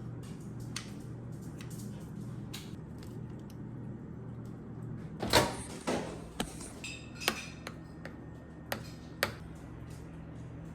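Kitchenware handling: dishes and utensils clicking and knocking over a steady low hum, with the loudest clatter about five seconds in and a few sharp clinks after it.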